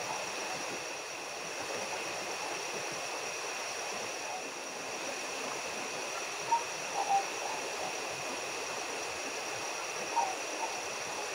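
Steady rush of a large river with two constant high tones over it, broken by a few short, sharp chirps: a cluster about six and a half to seven seconds in and another around ten seconds in.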